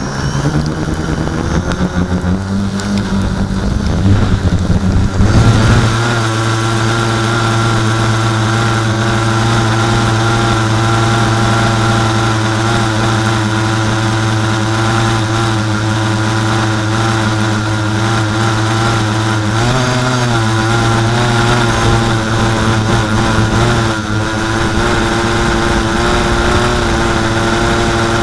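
Small multirotor drone's electric motors and propellers, heard from its onboard camera: they spin up with a rising pitch and lift off, loudest about four to five seconds in, then hold a steady buzzing hum in low flight, with brief dips in pitch about twenty and twenty-four seconds in.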